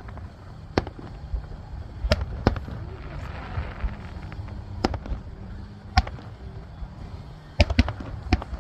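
Fireworks bursting: about nine sharp bangs at uneven intervals, several close together near the end.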